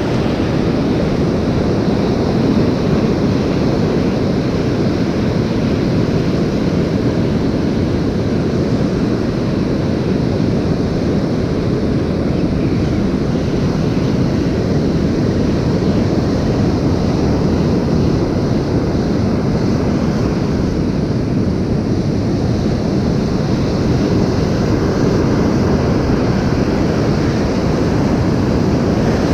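Steady wind rumble on the microphone over the continuous wash of surf on a sea beach.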